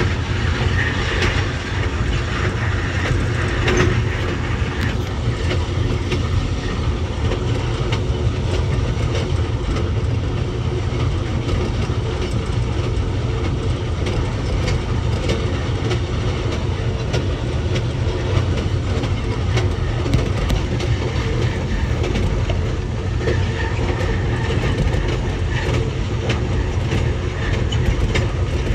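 Amtrak Southwest Chief passenger train rolling at speed: a steady low rumble of wheels on rail with faint scattered clicks from the track.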